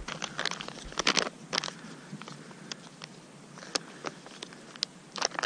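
Irregular crunching and crackling of cold, dry snow close by, with short sharp clicks scattered through.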